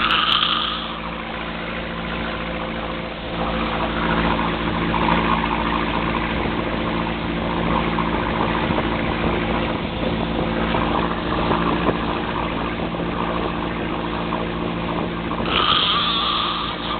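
Heavy snoring over the steady drone of a running engine.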